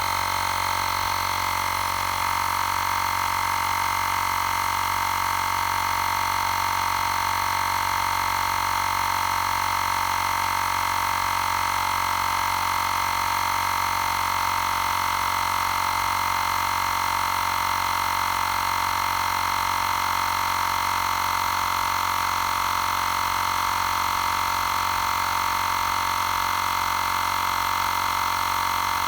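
Xiaomi Portable Electric Air Compressor 2 running steadily while it inflates a car's spare tyre: an even mechanical whine that holds the same pitch throughout.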